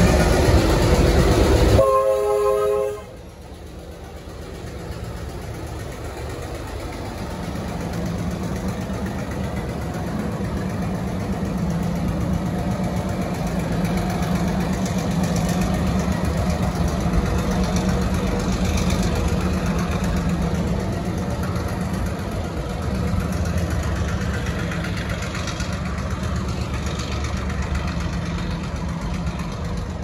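Y class diesel-electric shunting locomotive Y163 running loud close by, its three-chime horn sounding briefly about two seconds in. The sound then drops suddenly, and the engine goes on as a steady low drone.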